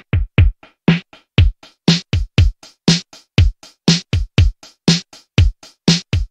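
Outro music: an electronic drum-machine beat of deep kick-drum hits, each sliding down in pitch, with sharp snare-like hits on many beats, about four hits a second. It cuts off abruptly at the end.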